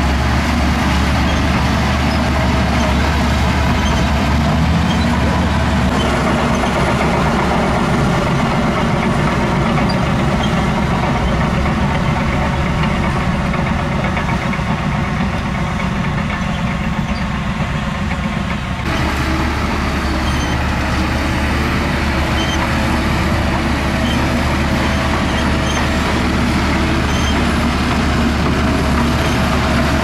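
Shantui crawler bulldozer's diesel engine running steadily under load as the dozer pushes soil. The sound changes abruptly about two-thirds of the way through.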